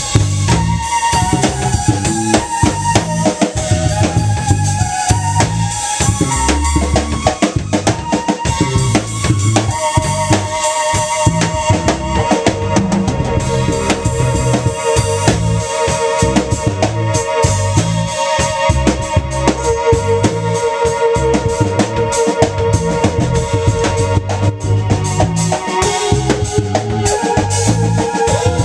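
A small band playing live without vocals: drum kit, electric bass and keyboard, the keyboard holding long notes over a steady beat.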